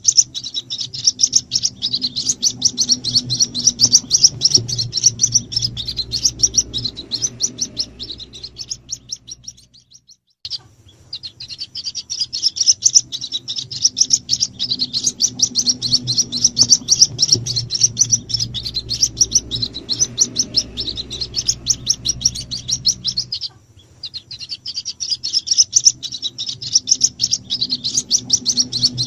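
White-breasted waterhen chicks peeping in rapid, high, dense chirps, a bird-trapping lure recording played on a loop to call in the parent birds. The chirping stops briefly about ten seconds in and again about three quarters of the way through, where the loop restarts, over a low steady hum.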